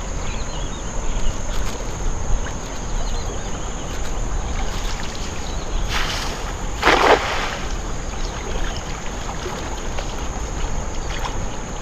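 Hand-thrown cast net over shallow floodwater: water sloshing around a wading person, a short rush as the net is flung out about six seconds in, then a louder splash as the weighted net lands on the water a moment later.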